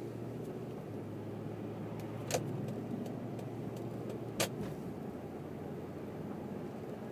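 Inside a moving car: a steady low road and engine rumble, with two short sharp clicks about two seconds apart.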